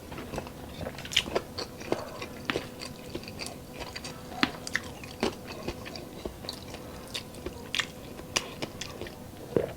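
Close-up chewing with repeated sharp, irregular crunches, a few a second: crispy deep-fried chicharon bulaklak (pork intestine) being bitten and chewed.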